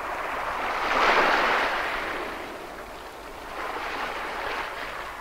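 Sea waves washing onto a shore: a rushing surge that peaks about a second in, ebbs away, then swells again more softly near the end.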